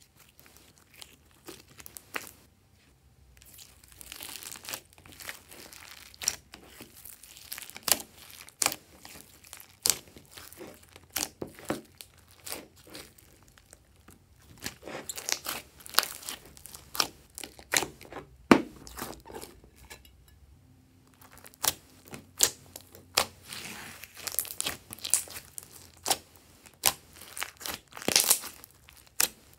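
Glossy slime being squeezed, stretched and pressed by hand: an irregular run of sticky pops, clicks and crackles, with short pauses between handfuls.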